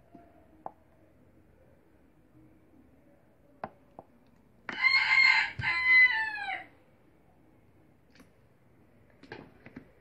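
A rooster crowing once, about two seconds long, in two parts with the pitch falling at the end. A few faint clicks come before it.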